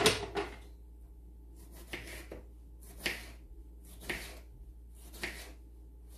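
A kitchen knife slicing a tomato into rounds on a wooden cutting board: a handful of short crisp cuts, the first the loudest, then roughly one a second.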